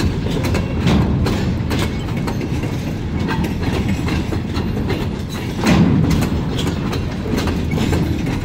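Freight cars rolling past close by: a steady rumble of steel wheels on the rails with irregular clicks and clanks, swelling louder a little past halfway.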